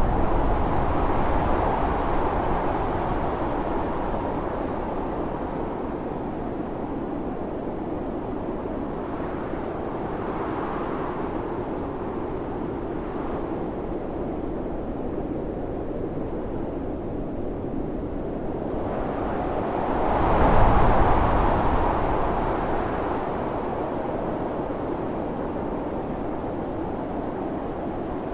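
Howling blizzard wind blowing steadily, rising in gusts at the start and most strongly about twenty seconds in.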